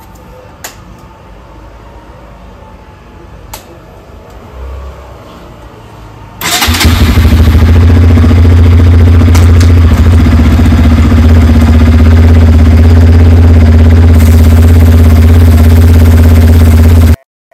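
Bajaj Pulsar NS200's single-cylinder engine starting about six seconds in, then running steadily and loudly until it stops abruptly near the end; before it, a few light clicks of handling.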